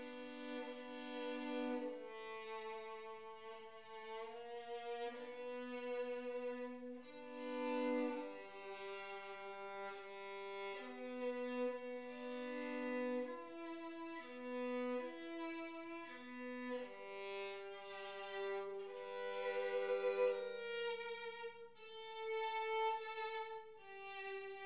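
Solo violin played with the bow, a slow melody in long held notes that change every second or two.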